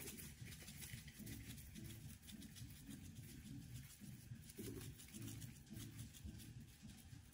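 Faint shaking of a seasoning shaker, dry seasoning pattering onto raw lamb chops in a pan as a run of soft irregular ticks over a low handling rumble.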